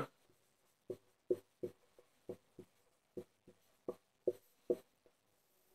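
Faint sound of writing: about nine short, irregularly spaced scratches and taps of a pen or marker stroke.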